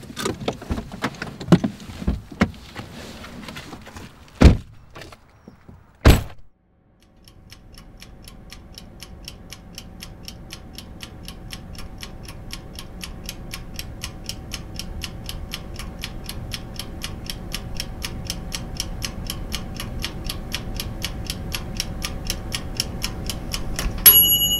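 Clicks, jangling and two loud door thuds as a car is shut up and left, then a clock-like ticking of a few ticks a second over a low steady drone, growing steadily louder. A bright bell-like ring starts just before the end.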